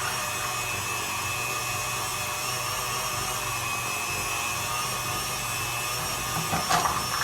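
Electric meat grinder running steadily as it grinds soaked chickpeas, an even motor hum with a whine.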